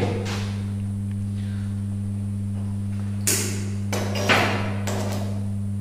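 Steady low electrical hum of the TIG welding machine, with a few short, sharp noises a little over three and four seconds in.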